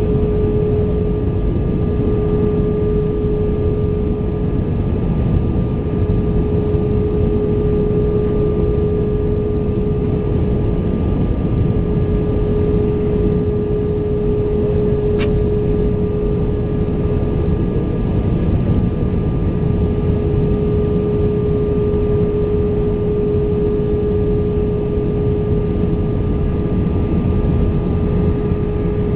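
Airbus A320 engines and airflow heard from inside the cabin on final approach: a steady rumbling noise with a constant droning tone running through it.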